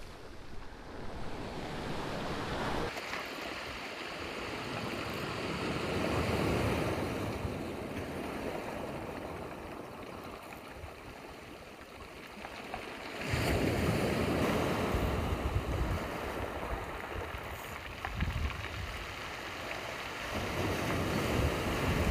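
Ocean surf breaking on a stony beach, swelling and easing in surges, with wind buffeting the microphone.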